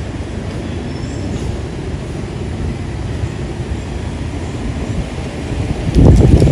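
Steady low rumble of wind buffeting the microphone, with a sudden louder gust near the end.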